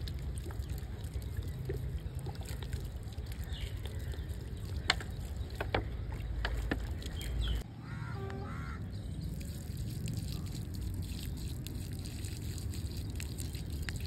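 Wind rumbling on a phone microphone outdoors, with a few scattered clicks and knocks. Water trickles from a plastic bottle onto bare soil.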